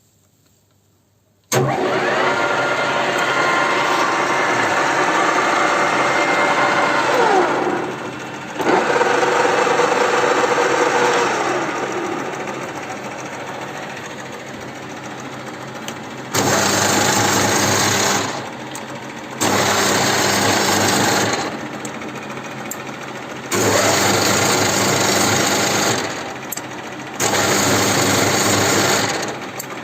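1K62 screw-cutting metal lathe starting up with a sudden loud mechanical running and a steady gear whine. The whine falls away twice as the spindle runs down, then the machine settles to a quieter steady running. Near the end the spindle is switched on and off four times, each run lasting a couple of seconds.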